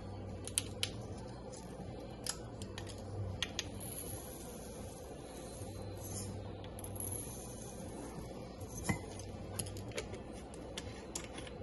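Coriander seeds scooped from a small spice jar with a measuring spoon and tipped into a glass mason jar: scattered light clicks and rattles of spoon and seeds against glass, over a faint steady hum.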